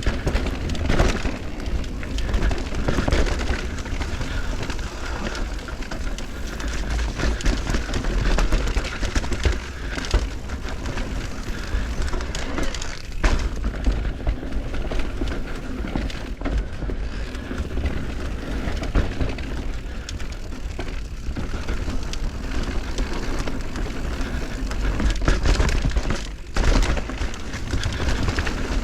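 Mountain bike ridden down a dirt trail: steady tyre and wind noise with heavy rumble of wind buffeting the microphone, and frequent sharp knocks and rattles from the bike over rough ground.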